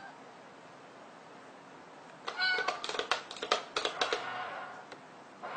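A short meow about two seconds in, then a quick run of light clicks and taps as a cat paws at the top of a small cardboard box.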